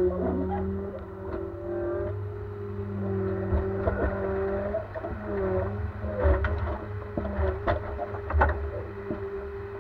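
Ponsse Elk forwarder's diesel engine and hydraulic crane running as the crane swings: a steady drone whose pitch dips briefly now and then under load, with scattered sharp knocks and clunks from the crane and grapple.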